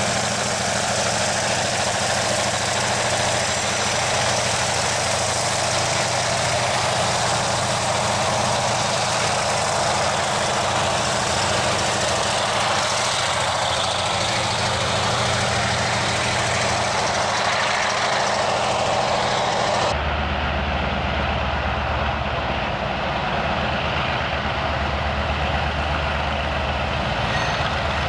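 Diesel freight locomotive engines running steadily as a train passes. About two-thirds of the way through, the sound cuts abruptly to another diesel locomotive approaching, with a deeper engine hum.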